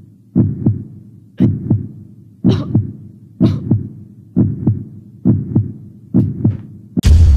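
Heartbeat sound effect: a low double thump, lub-dub, about once a second, seven beats. Near the end a sudden loud boom cuts in.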